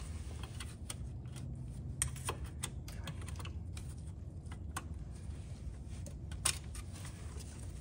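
Irregular small metallic clicks and taps of hand tools on a Toyota 4Runner's rear parking-brake shoe hold-down spring, pin and cap, over a low steady hum. The sharpest clicks come about two seconds in and about six and a half seconds in.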